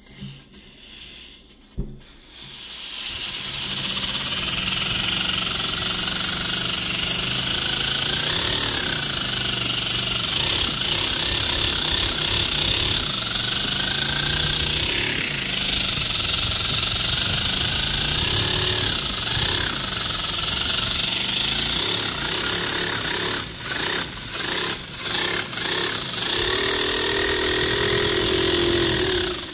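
Miniature paper V-4 compressed-air engine running on balloon air: a fast, uneven clatter from its offset firing order, under a strong hiss of air, much of it leaking through the valves. It starts about two and a half seconds in, stumbles several times near the end, then cuts off suddenly.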